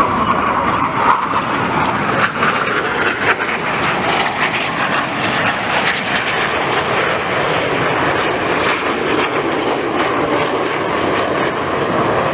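Jet noise from a formation of Northrop F-5E Tiger II fighters, each with twin turbojets, flying past: a loud, steady rush with short crackles in the first few seconds.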